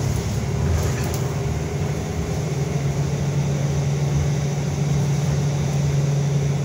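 Inside the cabin of a 2011 Orion VII diesel city bus under way: a steady engine and drivetrain hum over road rumble, with a few light rattles about a second in.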